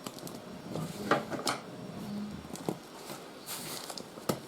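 A cardboard box and its packaging being cut open and handled: scattered clicks and knocks with a brief rustle.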